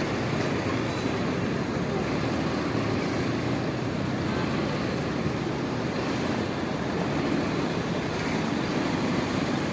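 Steady rumble of engines and road traffic.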